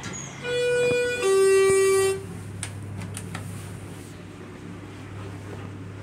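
Elevator arrival chime of a Schindler HT 330A hydraulic elevator: two electronic tones, the second lower, each about a second long. A few light clicks follow, over a low steady hum.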